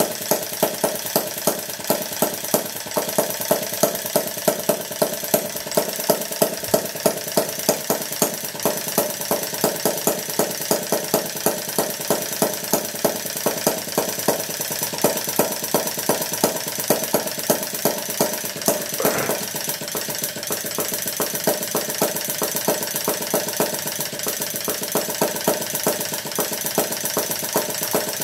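Maier vertical two-stroke butane model engine of about 1.5 cc running steadily on canned butane, a rapid, even popping from its firing strokes.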